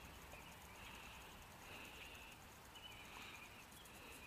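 Near silence: faint outdoor ambience, with a short buzzy call repeating about once a second in the background and a faint rapid ticking near the end.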